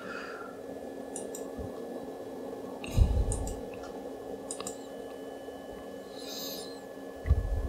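A few quick computer-mouse clicks at about 1 s, 3 s and 4.5 s, over a steady low hum. A couple of soft low thumps come around 3 s and again near the end.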